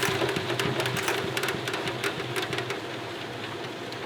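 Tangential honey extractor spinning up with a steady hum while honey flung from the uncapped comb spatters against the inside of the drum in many quick ticks, thinning out toward the end.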